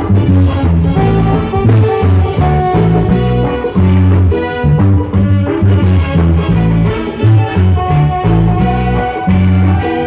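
Live reggae orchestra playing, with a strong repeating bass guitar line over drum kit and hand percussion, and horns and flute holding notes above.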